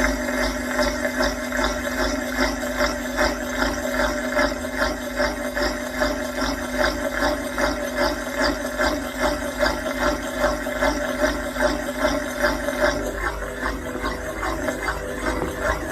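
Washing machine on its spin cycle, heard from inside the drum: a steady motor hum with a rhythmic swish and thump about two to three times a second as the drum turns. The hum changes and drops away near the end while the pulsing goes on.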